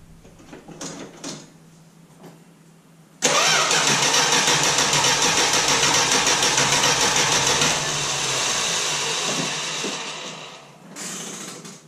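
Chrysler starter cranking the Plymouth Valiant's 225 slant-six engine on a dry start after months of sitting, with no fuel in the lines and no priming. The cranking begins suddenly about three seconds in with an even pulse, turns steadier for the last few seconds, and stops a little before the end.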